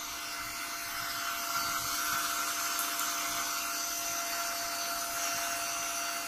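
A small electric motor whirring steadily, a constant high-pitched hum that does not change.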